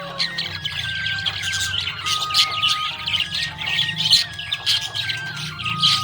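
Budgerigars chirping and squawking in a quick, busy stream of overlapping high calls, over background music with a simple melody that steps between a few held notes.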